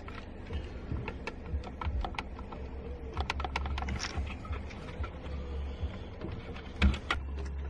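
Irregular small plastic clicks and taps of hands working the horn wiring connector off a car steering wheel, with a louder knock near the end, over a low steady rumble.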